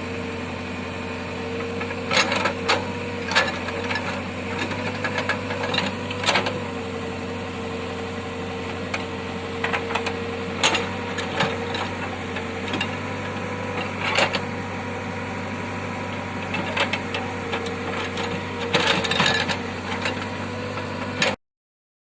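Backhoe loader's diesel engine running steadily while the machine works, with scattered sharp clanks and knocks over it. The sound cuts off suddenly near the end.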